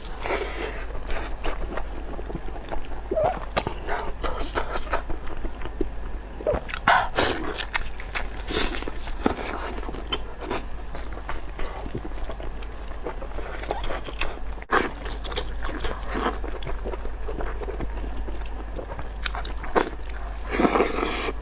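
Close-up mouth sounds of someone eating a chewy, sauce-coated meat: biting and chewing with irregular wet smacks and clicks.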